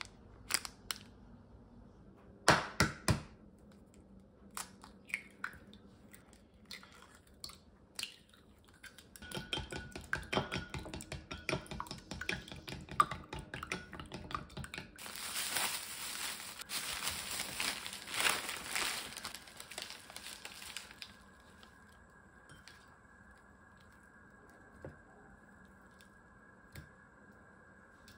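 Handling sounds: scattered clicks and knocks with crinkling of plastic packaging, then a denser stretch of rushing noise from about 15 to 21 seconds in, after which only a faint steady hum remains.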